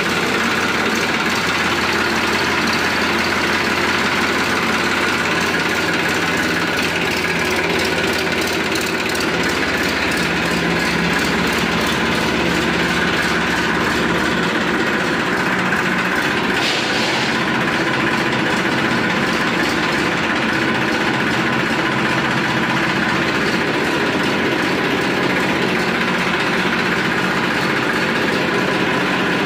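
Massey Ferguson 241 DI tractor's three-cylinder diesel engine idling steadily, just started cold on its electric self-starter and not revved.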